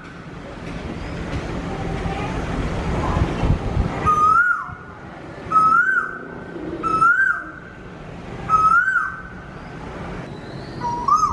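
Koel calling: five clear notes, each rising then dipping in pitch, about a second and a half apart, starting about four seconds in, the last after a longer pause. Before the calls there is a low rumbling noise.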